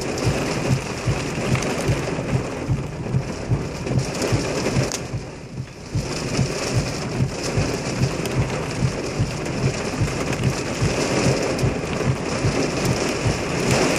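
Heavy rain pelting a car's roof and windshield, heard from inside the car as a dense, continuous patter of irregular drop impacts.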